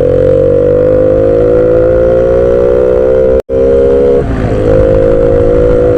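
Motorcycle engine on a standard muffler pulling steadily under way, its pitch slowly rising as the bike speeds up. The sound cuts out completely for an instant a little past the middle, wavers briefly like a gear change, then holds steady.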